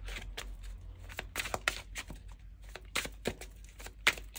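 Tarot cards being shuffled by hand: a quick, irregular run of crisp card-on-card flicks and slides.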